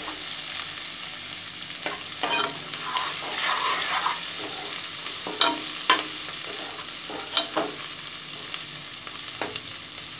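Sliced onions and whole spices sizzling gently in oil in an aluminium pressure cooker over a low flame, stirred with a steel spoon. The spoon scrapes and clinks against the pot about seven times over the steady sizzle.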